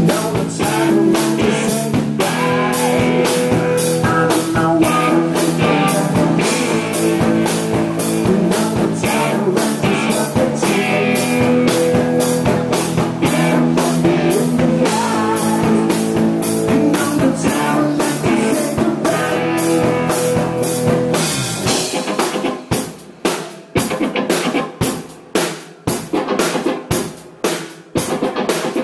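Live rock band playing: electric guitars, bass and a drum kit. About three-quarters of the way in, the sustained guitar chords drop away and the music turns into hard, separated hits led by the drum kit, with short gaps between them.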